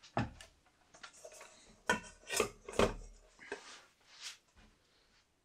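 Knocks and clatter of a metal bowl and camp cookware being picked up and moved about on a wooden bench, about half a dozen, the loudest about two to three seconds in.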